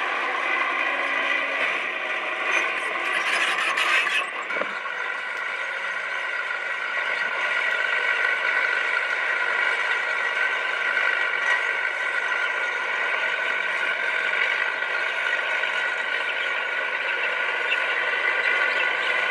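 Komatsu D20P bulldozer running and working, a steady mechanical sound with several held tones. A louder, noisier stretch from about three to four seconds in ends with a single knock.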